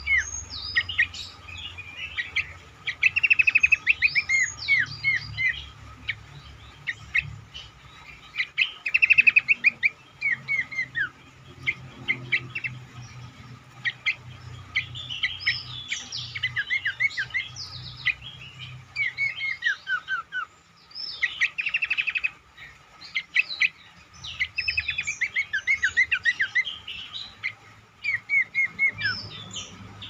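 Cingcoang (pelanduk semak, Horsfield's babbler) singing: loud, rapid runs of short whistled notes that slide downward, repeated in phrases with brief pauses between them. A faint steady tone runs underneath.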